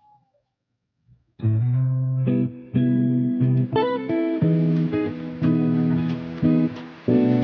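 Near silence, then about a second and a half in background music starts: a melody of separate notes with a low bass line.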